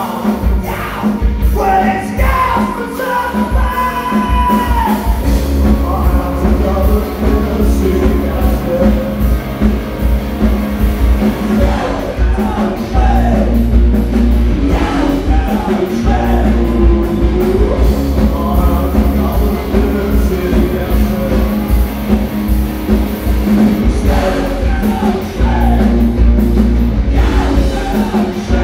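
Live rock band playing loudly: a male singer over electric guitars, bass guitar and a drum kit.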